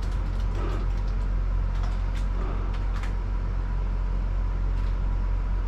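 A steady low mechanical hum with a faint thin steady tone above it, and a few light clicks in the first three seconds.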